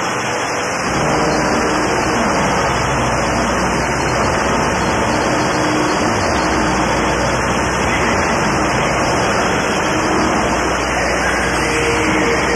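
Power electronics noise music: a dense, steady wall of harsh noise that cuts in abruptly and swells to full level within about a second, with faint held tones coming and going beneath it.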